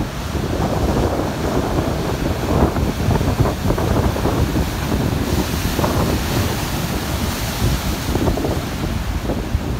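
Strong wind buffeting the microphone over the rush of rough, breaking waves and surf, with a louder hiss of surf from about five seconds in.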